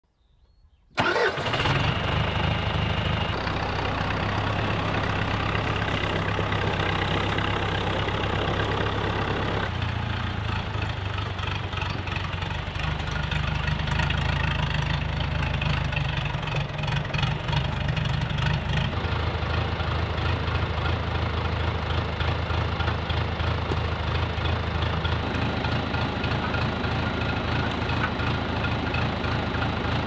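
John Deere 2040 tractor's diesel engine starting about a second in on its new starter and running on steadily, its note shifting a few times.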